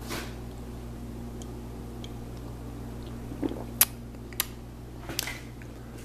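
Handling noise from a handheld camera being swung around, with a few sharp clicks a little past halfway, over a steady low hum.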